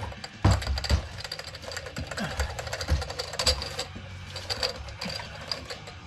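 Irregular clattering clicks and knocks of parts and tools being handled, with a few heavy thumps about half a second to a second in.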